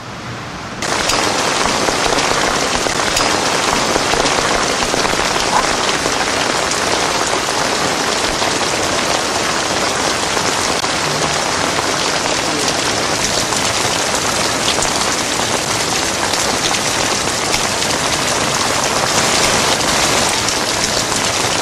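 Heavy rain pouring down onto the river and jetty, a dense steady hiss that starts abruptly about a second in.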